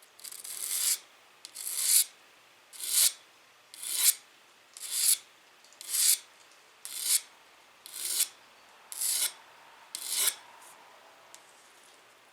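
A hand file scraping along the steel edge of a reciprocating-saw blade in ten strokes about one a second. Each stroke grows louder and then cuts off sharply, with a short quiet gap before the next, as the edge is filed down to make a knife edge.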